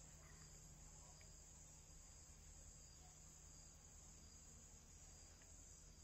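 Near silence: a faint, steady high-pitched hiss and low hum of background noise.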